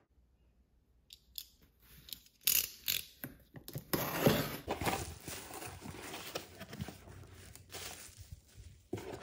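Utility knife slicing through packing tape on a cardboard box, in sharp scraping strokes, then the flaps and plastic bubble wrap rustling as the contents are pulled out.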